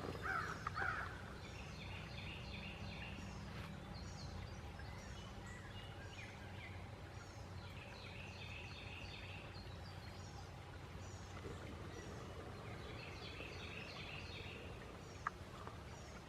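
Trail-camera field ambience: a steady low hum under groups of short, high chirping calls that come back every few seconds. There is a brief louder call right at the start and a single sharp click near the end.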